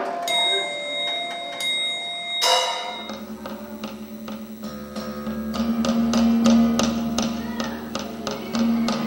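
Hammered dulcimer music: a few ringing struck notes, then from about three seconds in a run of quick, even hammer strikes over a low held tone.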